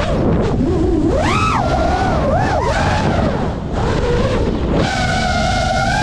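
FPV quadcopter's motors and propellers whining, the pitch swooping up and down quickly with the throttle, over wind rushing on the onboard camera's microphone. The whine drops back in the middle, then holds steadier and higher near the end.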